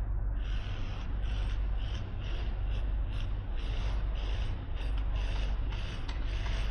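Construction machinery running with a steady low rumble and a repeating mechanical squeak or clatter about twice a second.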